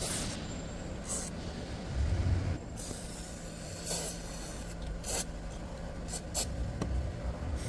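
Grease being worked by hand into a car door's hinge area: rubbing and rustling handling noise with scattered light clicks, and a low thump about two seconds in.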